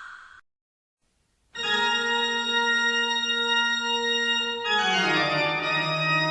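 The tail of a scream fades out, then after a second of silence a sustained organ chord comes in and holds. Nearer the end the chord slides down to a lower one and goes on sounding.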